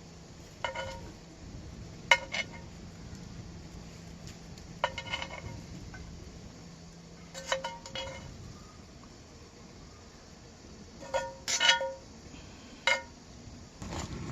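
Light clinks of tableware, glass or metal knocking together, each ringing briefly, coming singly or in quick pairs a few seconds apart. A faint steady low hum underneath stops about halfway through.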